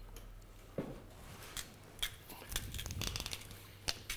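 A hand salt mill twisted in short turns, giving faint crunching clicks and a few light knocks. The mill is sticking and grinding poorly.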